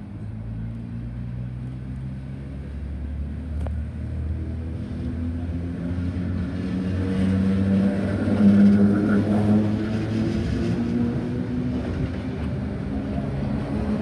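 Red Rattler F-set electric train pulling away from the platform and passing close by, growing louder throughout. Its traction motors hum in a gently rising pitch over the rumble of the wheels as it gathers speed.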